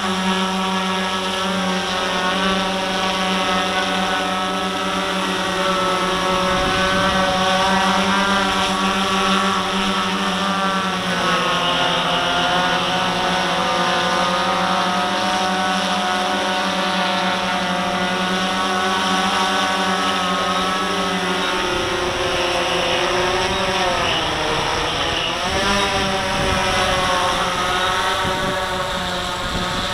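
RC Timer S1100 octacopter's eight electric motors and propellers whining in flight. The pitch slides down and back up twice as the motors change speed, and a low steady hum drops out about two-thirds of the way through.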